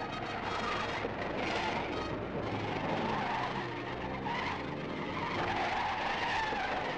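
Car tyres squealing repeatedly in long wavering screeches as an old car takes the garage turns at speed, over its running engine, on an old film soundtrack.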